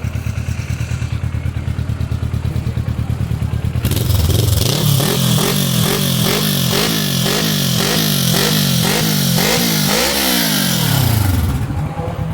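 Kawasaki Versys motorcycle engine breathing through a Kimoto Superbike aftermarket muffler. It idles steadily, then about four seconds in the throttle is blipped rapidly, about two revs a second, for some seven seconds, and it drops back to idle near the end.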